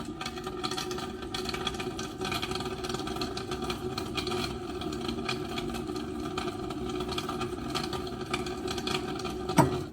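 Boiling-water tap dispensing: a steady hum with rapid crackling and spitting throughout, the tap flushing out the descaling water from its boiler tank. A sharp click comes just before it stops.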